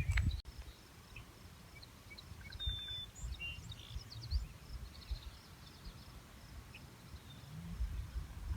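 Quiet countryside ambience: a few faint bird chirps about three seconds in over a faint steady insect chirring, with low rumbling noise underneath.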